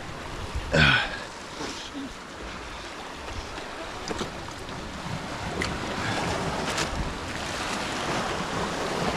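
Ocean surf washing onto the beach, with wind on the microphone; the wash grows a little louder toward the end. A brief falling voice call about a second in.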